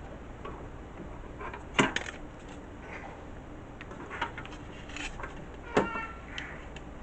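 Small clicks and knocks of a SATA cable and hard drive being handled and fitted inside a desktop computer case, with two louder knocks about two seconds and six seconds in.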